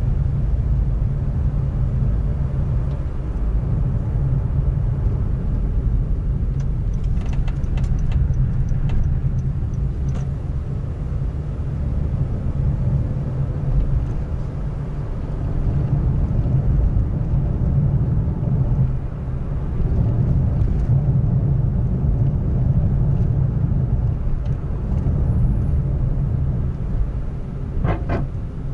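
Honda N-BOX driving, heard inside the cabin: a steady low road and engine rumble with a few faint clicks now and then and a sharper click near the end. The clicks are the abnormal interior noise, which the dealer traced to a faulty part under the seat.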